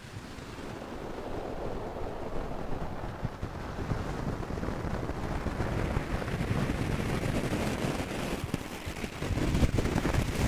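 Rumbling noise like wind buffeting a microphone, swelling over the first few seconds and surging louder near the end.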